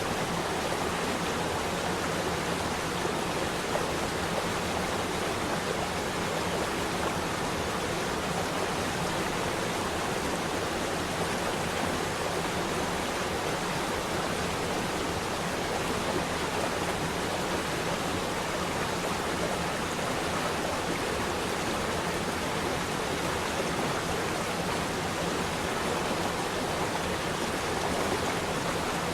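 Water flowing in a stream, a steady, even rush with no changes.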